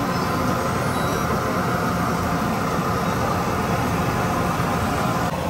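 Steady din of a busy street, dominated by vehicle traffic noise, with no single event standing out.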